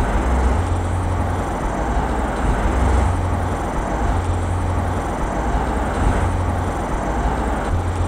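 Steady road and engine rumble of a van being driven, heard from inside the cabin, with a deep low drone under an even hiss of tyre and wind noise.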